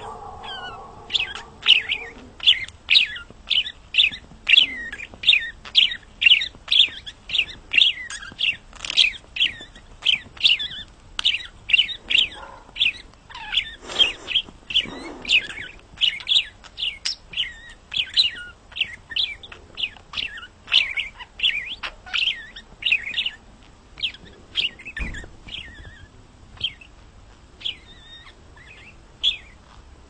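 Budgerigar chirping: quick, short, high chirps about two a second, growing sparser near the end.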